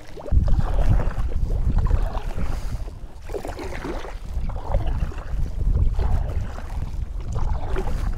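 Wind buffeting the microphone on a kayak: a loud low rumble that comes in suddenly about a third of a second in and keeps gusting.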